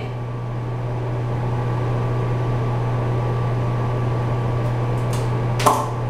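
Steady low hum of a ventilation fan, with a brief click near the end.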